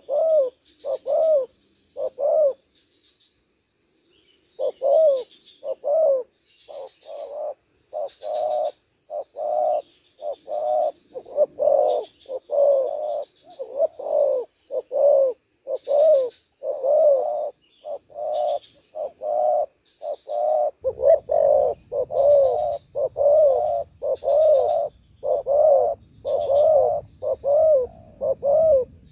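Spotted doves cooing: a steady run of short, arched coo notes, a little more than one a second, with a pause of about two seconds near the start. A faint thin high tone runs beneath, and a faint low rumble comes in about two-thirds of the way through.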